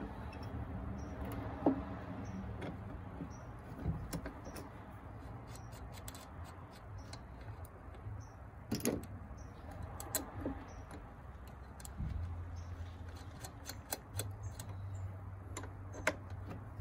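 Scattered small metallic clicks and taps as a battery terminal clamp and cable end are handled and fitted onto a car battery post, one louder click about halfway through, over a low steady hum.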